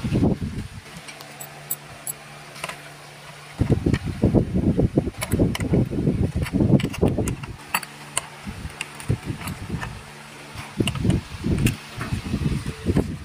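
Hand tools being worked on a jacuzzi blower's plastic motor housing during reassembly: scattered small metal clicks and clinks, with two stretches of low rumbling knocks and handling bumps, the first about four seconds in and the second near the end. A faint steady hum sits underneath.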